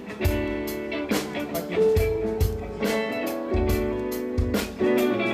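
Live band playing a slow Thai pop ballad in a gap between sung lines: guitar chords held over a steady drum beat.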